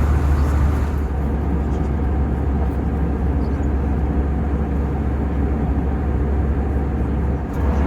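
Steady cabin noise of an Airbus A320 in cruise: a deep, constant drone of the engines and airflow along the fuselage, dipping briefly near the end.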